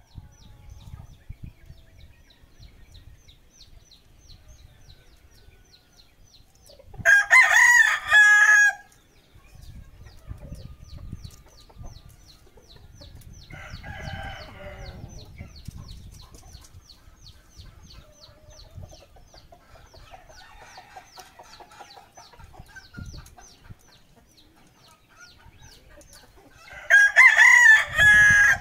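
A rooster crowing loudly twice, once about seven seconds in and again near the end, each crow lasting under two seconds, with a fainter call in between. A faint, fast, even ticking runs underneath.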